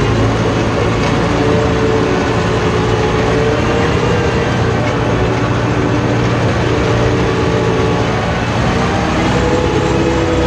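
Farm tractor engine running steadily under load, heard from the driver's seat, as the tractor moves slowly in second gear pulling a potato-hilling cultivator through the rows.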